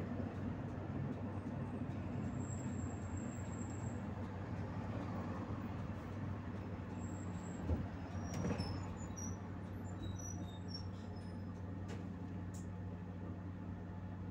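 Inside a Volgabus-5270.GH city bus on the move: the engine hums steadily under road and cabin noise, with one sharp knock a little past the middle.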